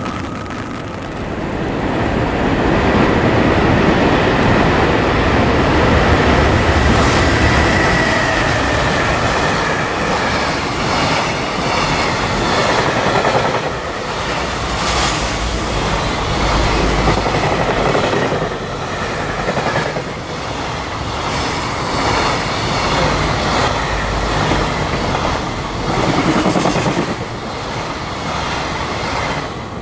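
JR Freight EF210 electric locomotive and its long train of container wagons running through the station. It gets loud about a second and a half in, with a thin high whine over the first ten seconds or so, then a steady rumble and the repeated clickety-clack of the wagon wheels over the rail joints.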